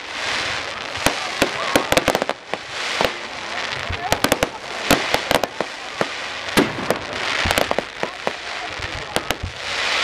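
Fireworks display: sharp cracks and bangs of bursting shells, irregular and often in quick runs, over recurring waves of hissing.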